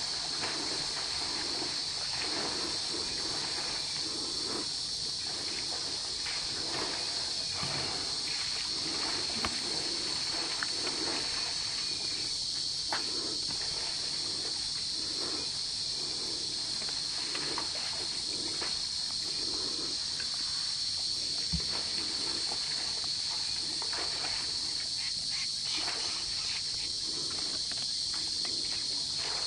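A steady high insect chorus drones throughout, with irregular splashing and sloshing of water as an elephant calf struggles against the bank of a water hole and adult elephants' trunks stir the shallows.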